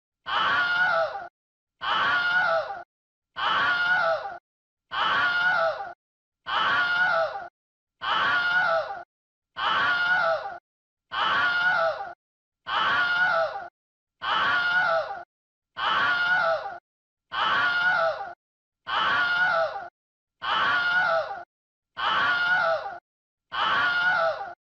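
The same short human scream, a looped sound-effect recording, repeated over and over about every second and a half, each scream under a second long and high-pitched, with silence between.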